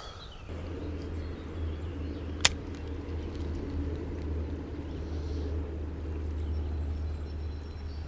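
Spinning reel being cranked steadily, a continuous low whirring as the line is retrieved, with one sharp click about two and a half seconds in.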